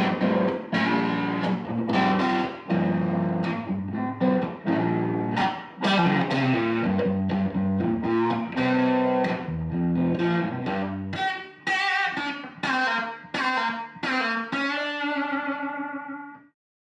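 Electric guitar playing chords over a low line, then from about 11 seconds in single picked notes, ending on a held note that cuts off suddenly near the end.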